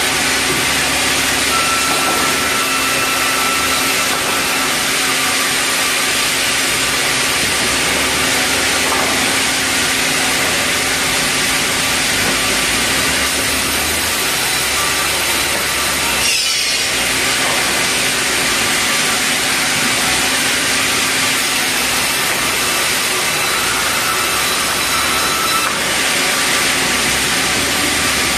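Sawmill band saw cutting red meranti timber: a loud, steady sawing noise as boards are fed through the blade, easing briefly just past halfway before the cut resumes.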